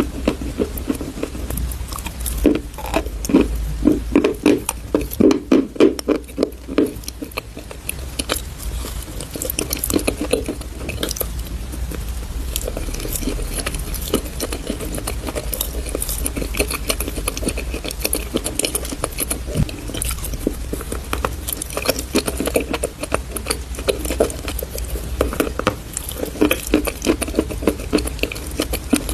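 Chalk paste crunching and crackling as it is broken and pressed, with many small irregular crackles and softer squishy crunches. The crunches come thickest in the first several seconds and again near the end.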